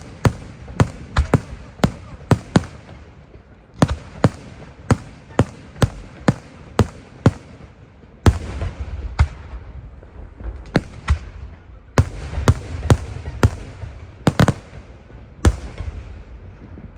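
Fireworks display: an irregular run of sharp bangs from bursting shells, often two or three a second, with a low rumble between them. There is a short lull about three seconds in.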